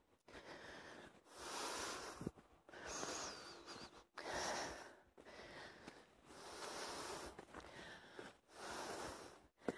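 A man's heavy panting from the exertion of climbing steep stone steps, a long breath about every second and a half. There are two sharp taps, one about two seconds in and one near the end.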